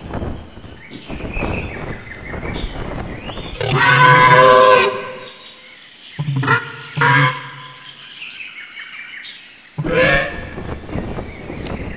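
Pterosaur sound-effect calls from the projected dinosaur display: one long loud call about four seconds in, two short calls around six and seven seconds, and another near ten seconds, over a continuous nature-ambience background with chirps.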